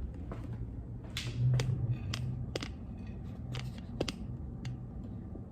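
Handling noise: scattered light clicks and knocks, about ten in all, over a low rumble, as a phone and a dinner plate are carried and handled.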